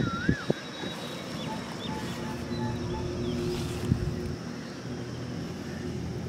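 Outdoor ambience: a steady low hum like a distant engine, with short bird chirps and a couple of sharp clicks near the start.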